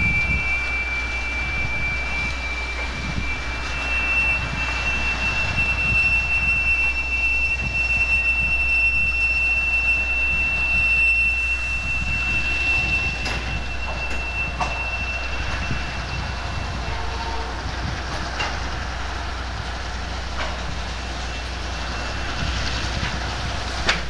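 Freight train of tank cars rolling slowly past, its wheel flanges squealing in one steady high-pitched tone that fades out about two-thirds of the way through. Scattered sharp clicks of wheels over rail joints follow, the loudest near the end.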